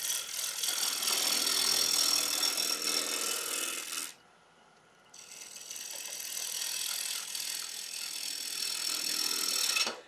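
Bowl gouge roughing a damson blank spinning between centres on a wood lathe, in two cuts of about four to five seconds with a second's break between them. The cut rattles as the blank is still out of round with flat spots, so the tool meets wood only part of each turn.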